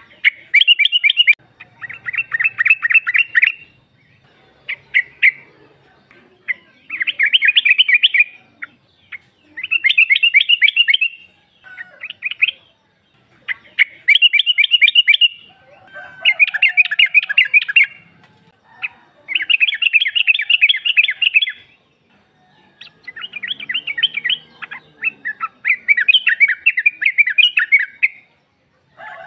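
Yellow-vented bulbul (trucuk), given as a female calling, giving repeated bursts of fast chattering notes. Each burst lasts one to two seconds, with short pauses between.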